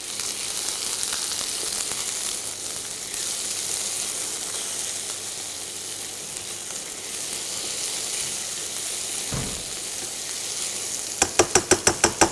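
Pancetta, red onion and cherry tomatoes sizzling in a frying pan as they are stirred with a spatula, a steady hiss. Near the end comes a quick run of sharp taps, about eight in a second.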